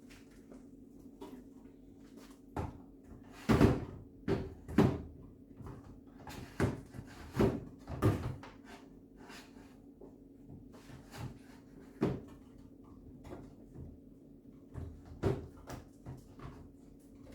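Food containers and items being handled and set down in a refrigerator during a clean-out: a string of irregular knocks and clunks, loudest about a third of the way in.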